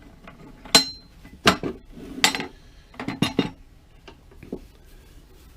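Metal clanks and clinks from handling a steel ammo box and the cyclone separator lid on it: several sharp knocks, a quick cluster of three about three seconds in, then a couple of lighter taps.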